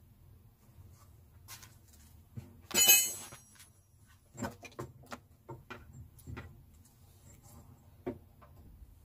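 Metal clinks and knocks from hands and tools working on a car's front shock absorber strut and hub. One loud ringing metallic clatter comes about three seconds in, followed by a scatter of shorter knocks.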